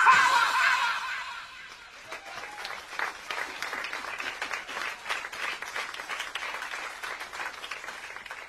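A dance track ends, its last sounds fading over the first two seconds. Then a crowd claps and applauds, a dense patter of hand claps, until near the end.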